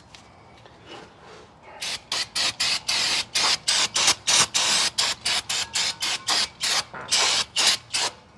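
Aerosol brake cleaner sprayed in many short hissing bursts, about three a second, starting about two seconds in.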